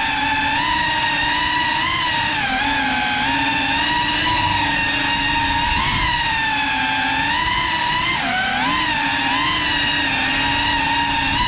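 GEPRC Cinelog 35 cinewhoop FPV drone's brushless motors and ducted propellers whining steadily. The pitch wavers with the throttle, dipping and then rising sharply about eight seconds in.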